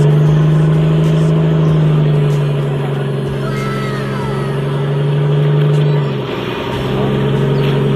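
Outrigger boat's engine running steadily under way, with a short dip in its sound about six seconds in before it picks up again, over water splashing along the hull.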